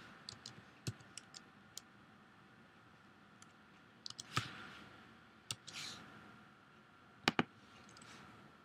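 Faint, scattered clicks of computer keys, irregular and without a steady rhythm, with a quick double click near the end.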